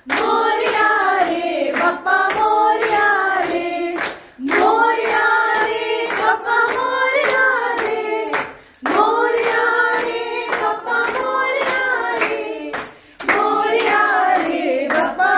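A group of women singing a Hindu devotional bhajan together in unison, clapping along in a steady rhythm. The singing comes in long phrases broken by short breaths.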